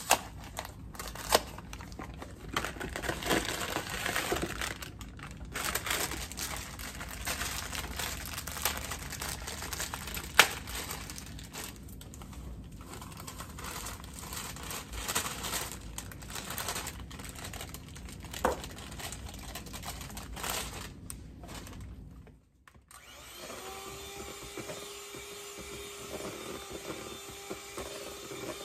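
A cardboard cake-mix box and its plastic inner bag crinkling and rustling as they are torn open and the mix is poured into a bowl, with scattered sharp clicks. After a short pause about three-quarters of the way through, an electric hand mixer starts and runs with a steady hum.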